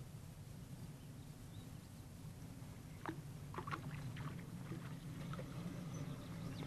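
A small hooked fish splashing at the water's surface: a cluster of short splashes starting about three seconds in, over a low steady rumble.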